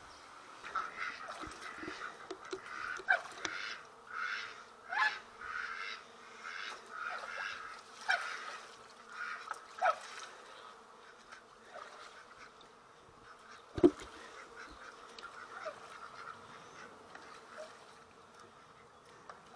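Domestic geese honking over and over for about ten seconds, then a single sharp knock, after which only a few faint calls are heard.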